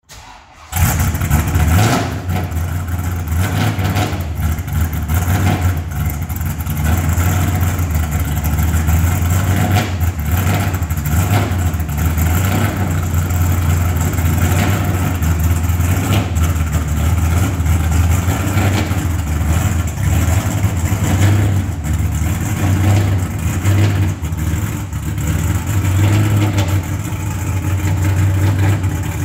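1965 Mustang GT350R tribute race car's V8 engine on a cold start: it catches suddenly within the first second and then runs at a loud, uneven idle, swelling briefly a few times. Near the end the car rolls slowly out of the garage with the engine still running.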